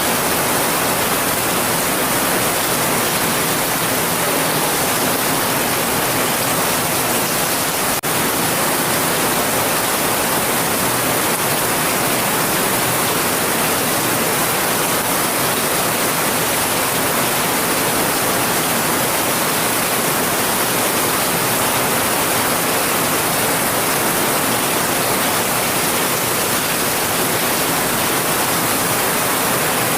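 Steady, dense hiss of heavy rain, with a single brief tick about eight seconds in.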